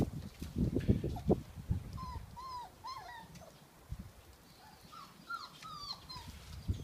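Six-week-old beagle puppies whimpering: two runs of short, high whines, about five around two seconds in and four more around five seconds in. A few dull thumps come first, in the opening second and a half.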